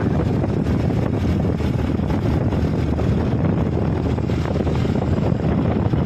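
Wind rushing over the microphone of a moving motorbike, a steady low rumble, with the bike's running engine and road noise underneath.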